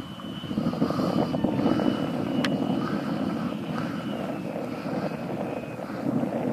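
Skymaster F-18 RC jet flying, its Taiwan Tornado 120 mm all-metal electric ducted fan (880 kV motor) giving a steady rushing sound with a thin high whine that drops slightly in pitch about two-thirds of the way through. A single sharp click about 2.5 s in.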